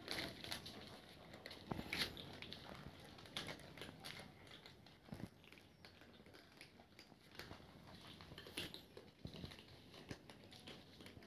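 A group of cats eating dry food together: faint, irregular crunching and clicking of kibble being chewed.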